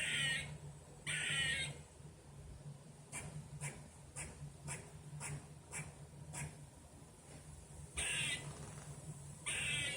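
Squirrel calling: a raspy call about half a second long at the start and another about a second in, then a run of short, sharp chips at about two a second, and two more raspy calls near the end.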